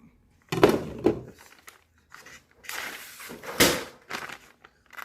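Sheets of paper rustling and being sliced by a freshly sharpened kitchen knife, in two short papery swishes, the second ending in a sharper cut.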